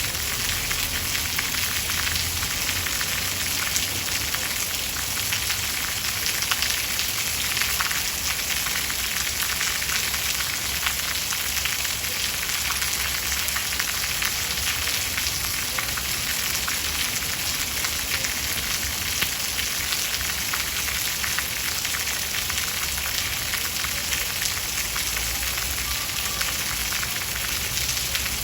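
Steady rain falling, a dense even hiss of drops with fine patter and no thunder.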